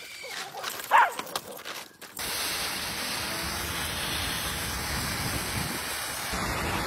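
A dog yelps sharply about a second in, amid a few knocks. Then, from about two seconds in, a burst pipe jetting a high-pressure column of water and spray into the air gives a steady rushing hiss.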